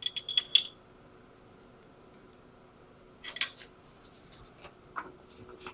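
Light metallic clinks of a steel spanner against the lathe's metal parts as a clamp is tightened: a quick cluster at the start, another about three and a half seconds in, and a couple of single ticks near the end.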